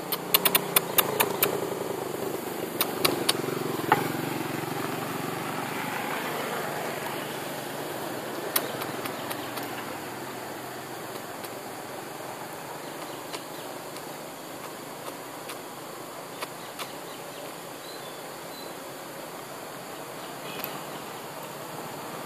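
A motor vehicle's engine running past, swelling a few seconds in and then fading to a steady rumble, with a quick run of sharp clicks in the first few seconds.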